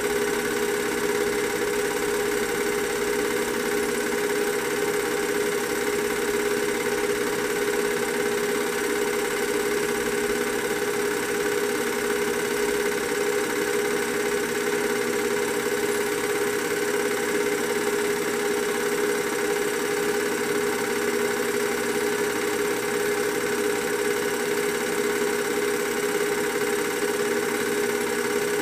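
Film projector running with a steady motor hum at one unchanging pitch and a light mechanical chatter, even and unvarying throughout.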